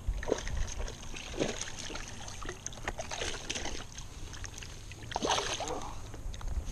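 Lake water splashing and sloshing in the shallows against a rocky shoreline, in several short bursts as a hand reaches down into the water.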